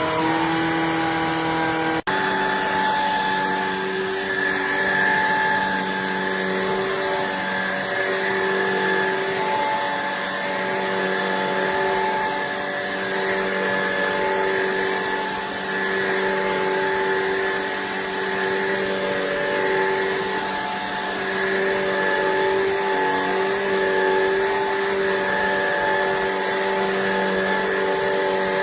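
Shark Pet Pro cordless stick vacuum's motor running steadily at maximum suction with the trigger held, a high motor whine over the rush of air. It cuts out for an instant about two seconds in, and when it resumes its pitch has shifted.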